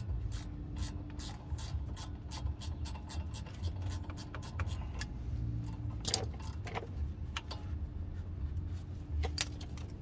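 Ratchet wrench clicking in irregular runs as a rear brake caliper bolt is turned out, with a few louder metallic clicks about six seconds in and again near the end, over a steady low hum.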